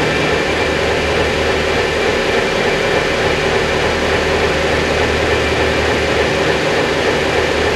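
Large low-noise railway wind tunnel running: a steady rush of air with a low hum and a constant mid-pitched tone from the tunnel's fan and airflow, holding an even level.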